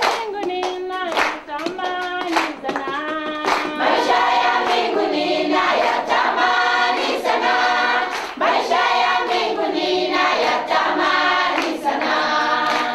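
A group of people singing together in unison, clapping their hands in time with the song.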